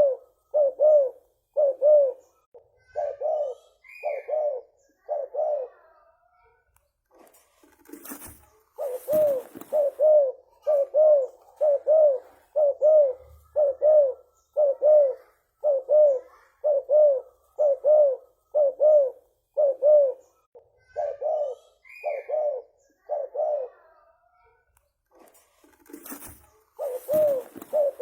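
Spotted dove (tekukur) cooing in long, quick runs of short, even coos, about two a second, with a pause after about six seconds and again near the end. Short rustling noises come in those pauses.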